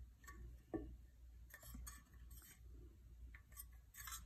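Near silence with faint, scattered light clicks and taps: hands bending a thin printed sheet blank up into a small tray.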